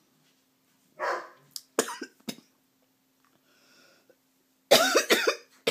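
A woman coughing in several fits: a harsh cough about a second in, a few short sharp coughs just after, then a louder run of coughs near the end.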